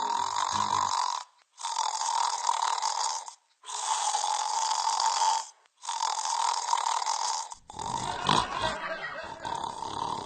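A person snoring loudly: four long, rasping snores about two seconds apart, followed by a rougher, lower snort-like sound in the last couple of seconds.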